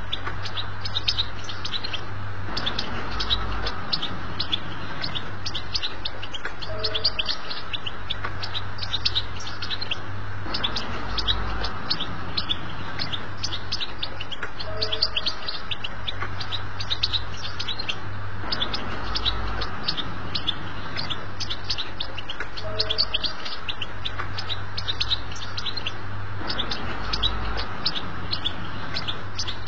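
European goldfinch singing a fast, unbroken twittering song of quick high chirps, over a steady low hum. The same passage comes round again about every eight seconds, as in a looped tutoring recording.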